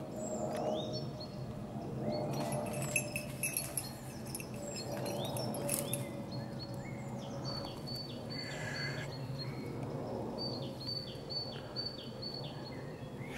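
Small songbirds chirping in woodland: many short, high, repeated chirps, busiest in the second half, with a few quick falling calls. A cluster of crackling clicks comes about three seconds in.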